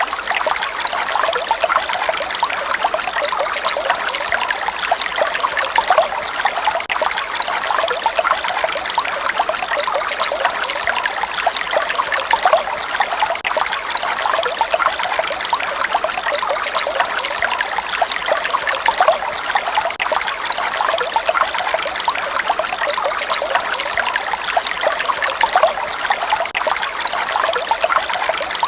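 Running water trickling and splashing steadily, with no break or change.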